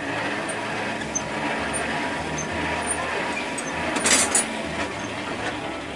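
Metal tools clinking at a coal forge as the fire and the heating iron are worked with tongs, with a short run of sharp clinks about four seconds in, over a steady background hiss.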